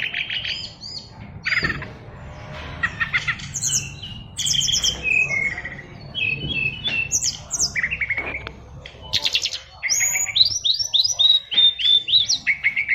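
Caged SRDC (sikatan rimba dada coklat, brown-chested jungle flycatcher) singing a fast, varied song of chirps, rapid trills and sliding notes, crammed with mimicked calls of other birds.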